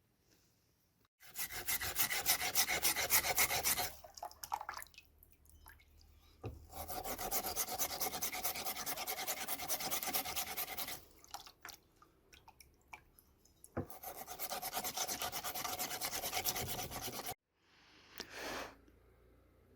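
Hand abrasion on an old axe during restoration: three bouts of fast back-and-forth rasping strokes, with short pauses between them, then one brief scrape near the end.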